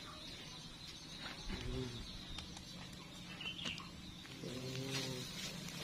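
Quiet background with a steady high insect chirring, broken twice by a brief faint low hum.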